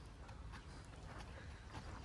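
Faint, irregular hoof steps of a horse walking with a rider on its back.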